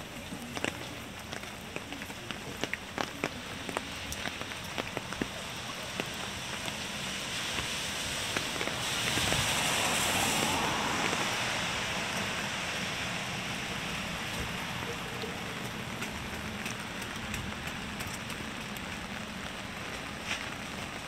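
Steady rain falling on wet pavement, with scattered sharp drop taps. About nine seconds in, the hiss swells louder for a few seconds, then eases back.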